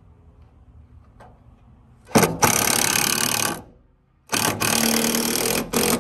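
Cordless impact driver driving a screw into a wooden post: two runs of about a second and a half each, starting about two seconds in, then a short burst near the end.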